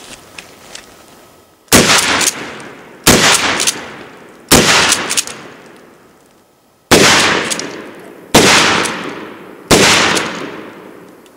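Six shots from a 12-gauge shotgun firing 1 1/8 ounce loads of number 8 birdshot, in two groups of three with the shots in each group about a second and a half apart, each shot trailing off in an echo over about a second.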